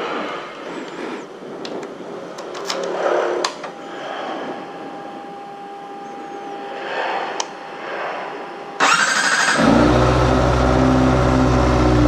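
A few light clicks and rustles, then about nine seconds in the Kawasaki ZX25R's 250 cc inline-four cranks, fires and settles into a steady idle. It runs through an aftermarket 'Ayam Geprek' exhaust with its dB killer fitted.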